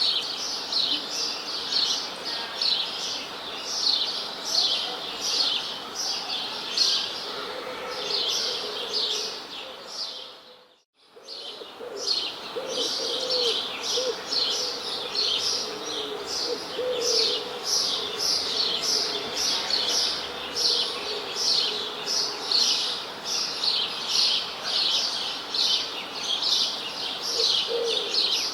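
A chorus of songbirds chirping in quick, repeated high notes, with lower calls woven through. The sound cuts out for under a second about eleven seconds in, then the chorus resumes.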